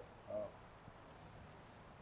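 Quiet outdoor background with a faint steady hiss, and one brief pitched vocal sound about a third of a second in.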